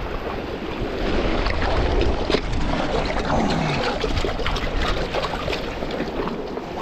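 Sea waves washing against shoreline rocks, with wind buffeting the microphone as a steady low rumble.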